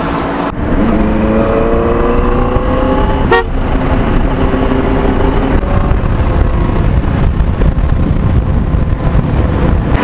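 Benelli 600i motorcycle's inline-four engine pulling under way, its pitch rising steadily for a few seconds. It breaks briefly about three and a half seconds in, as at a gear change, then runs on at a steadier pitch. Wind rushes over the microphone throughout.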